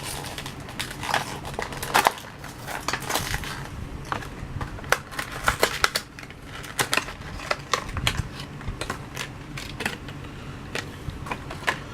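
Plastic blister pack and card of a Hot Wheels diecast car being pried and torn open by hand: an irregular run of sharp crackles, clicks and crinkles, busiest in the first few seconds.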